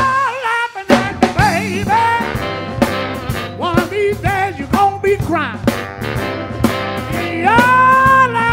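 Live soul band playing, with drums, bass, electric guitar, a saxophone-and-trumpet horn section and a lead vocal. The bass and drums drop out briefly at the start and come back in on a hit about a second in, and a long held note sounds near the end.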